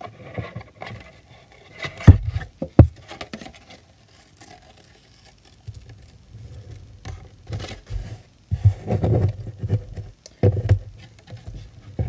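Scissors snipping and trimming a card tab, with rustling and rubbing as the card is handled and turned on a wooden table. Two sharp knocks about two seconds in are the loudest sounds.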